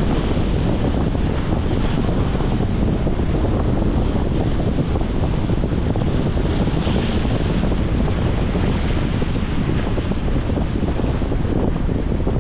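Strong wind buffeting the microphone over the steady wash of choppy waves against a concrete shoreline.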